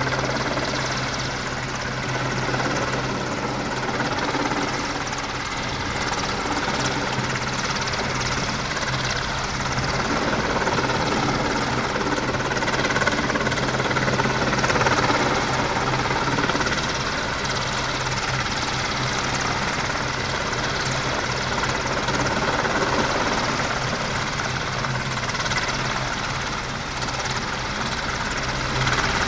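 AW-101 three-engine helicopter hovering low: steady noise of the main rotor and turbines, with a constant low hum and no let-up.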